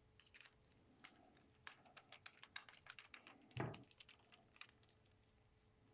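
Faint, irregular light clicks of a torque screwdriver's bit and small metal mount parts as screws are driven in, with one duller knock about three and a half seconds in.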